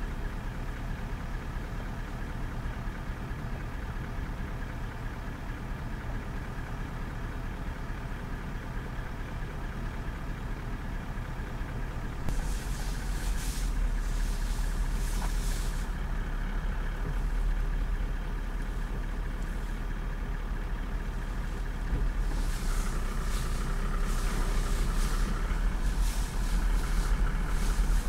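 A vehicle's engine idling steadily close by, with bouts of crackling noise about halfway in and again near the end.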